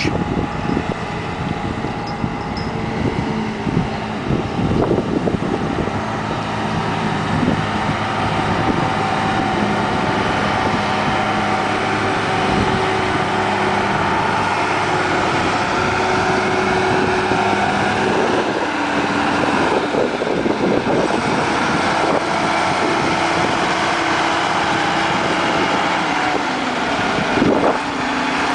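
Engine of a large boat-transporter forklift running under load while carrying a boat, growing louder over the first several seconds as it draws near. Its engine note shifts down and up a few times in the second half.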